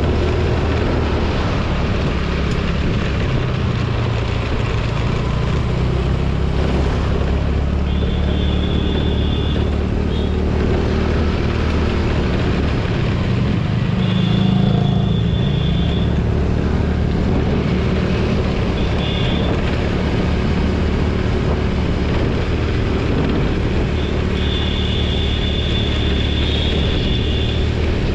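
TVS Jupiter scooter's engine running steadily on the move, with wind rushing over the microphone. A high, thin, steady tone sounds several times, each lasting one to three seconds.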